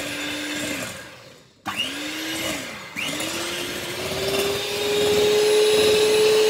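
Electric hand mixer beating eggs and sugar in a glass bowl. Its motor whine winds down and stops about a second in, starts again, dips once more, then rises steadily in pitch and gets louder as it speeds up.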